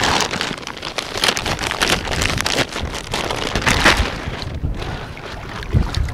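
Shallow sea water splashing and dripping as a gill net is hauled up and handled by hand, with an uneven crackle of small splashes.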